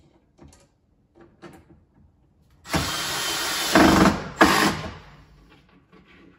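Cordless drill/driver driving a screw to fix a metal drawer runner inside a kitchen cabinet. It runs for about a second and a half from near the middle and grows louder under load, then gives a short second burst to seat the screw. A few light clicks and knocks from handling come before it.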